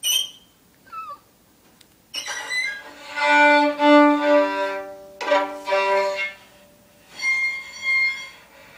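Violin bowed by a poor player: a few sustained notes in two short phrases, the first starting about two seconds in and a shorter one near the end, with a gap between them.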